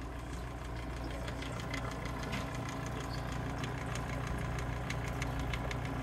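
Cornelius ice machine water pump running with a steady hum and light irregular ticking: the pump is struggling and on its way out.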